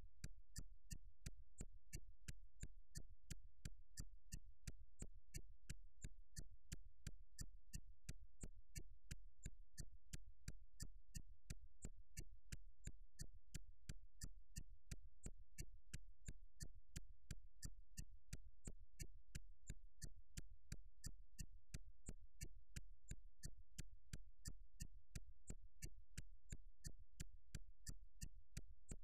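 Faint music: a steady, fast, evenly spaced beat over a constant low bass hum.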